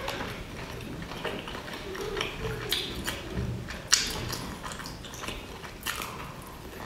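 Close-up mouth sounds of a person eating boiled dumplings: biting and chewing with wet lip smacks and small clicks. There is a sharper click about four seconds in.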